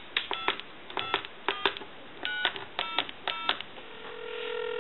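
Touch-tone (DTMF) dialing on a TA-1042A military field telephone's keypad: six short two-tone beeps, each starting with a key click, about half a second apart. Near the end the dialing stops and a steady ringback tone comes on the line as the called number rings.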